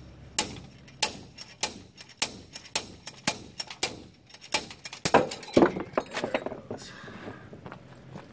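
Slide hammer yanking on a chain wrapped around a CV axle's inner joint: its weight slams against the stop in a run of sharp metal clanks, a little under two a second, with the chain jingling. The loudest blows come about five seconds in, when the axle's C-clip lets go and the shaft comes out of the differential, and the hammering stops.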